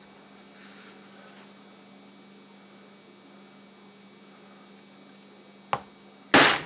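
Steady electrical hum, then near the end a hammer strikes a nail held as a makeshift center punch on a metal plate: a light tap followed by one sharp metallic blow with a brief ring.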